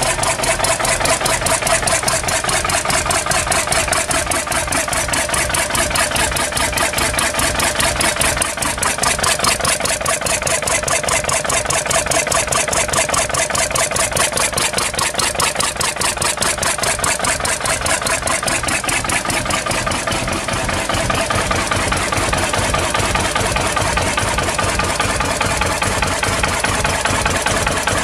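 Lister CS single-cylinder, compression-start stationary diesel engine running steadily, its firing strokes making a fast, even beat.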